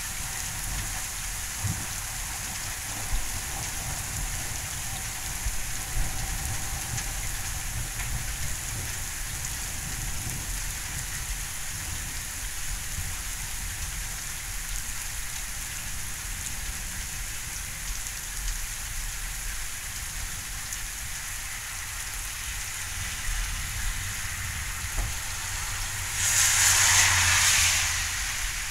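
Steady rain falling in a thunderstorm, an even hiss throughout, with a louder rushing swell for about two seconds near the end.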